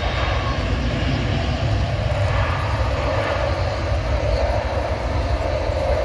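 Jet airliner's engines running on the runway, a steady distant rumble that grows a little stronger about halfway in, under heavy wind buffeting the microphone.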